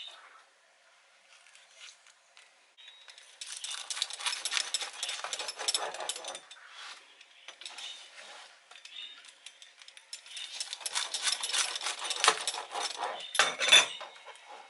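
Dense crackling and scraping of a knife cutting through a crisp grilled tortilla quesadilla on a board, in two passes of a few seconds each. The second pass ends with a couple of knocks.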